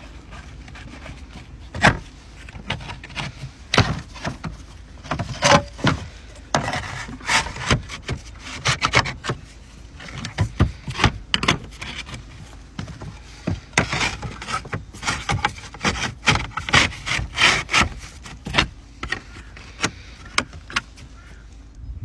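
Roof slates scraping and clicking against each other as a replacement slate is slid into place over a metal slate hook and handled. Irregular sharp knocks and short scrapes come thickest in the middle stretch.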